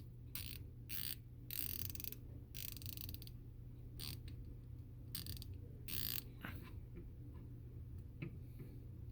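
A 1/4-inch Icon hand ratchet being swung back and forth, its pawl clicking in a series of short and longer runs with pauses between. It is being worked to show a fault: the ratchet mechanism intermittently gets jammed up.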